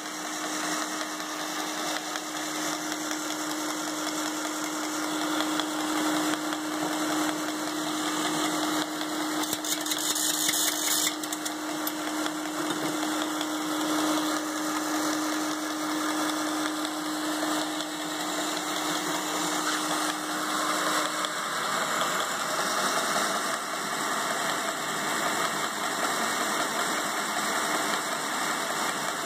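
Hitachi belt grinder converted to take a 4x72 belt, running steadily: motor hum and belt noise. A steady hum drops out about three quarters of the way through while the belt noise carries on.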